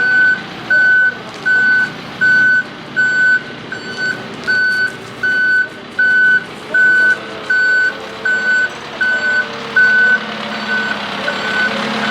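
Backhoe's reverse alarm beeping steadily, about four beeps every three seconds, over its running engine. The engine note rises a little about halfway through as the machine works.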